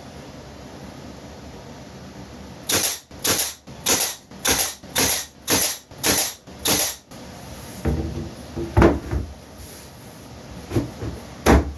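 About eight regular scraping strokes, roughly two a second, followed by a few knocks from workpieces being handled.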